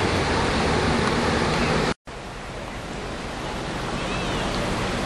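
Creek water rushing steadily through rapids. About two seconds in it cuts out for an instant, then returns a little quieter and slowly grows louder, with a faint high chirp near the end.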